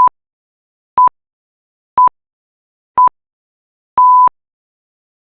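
Countdown timer beeps: four short, identical electronic beeps one second apart, then a longer final beep marking time up.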